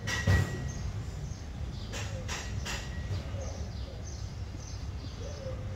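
Outdoor background: a steady low rumble with faint bird chirps and a few sharp knocks. The loudest knock comes just after the start.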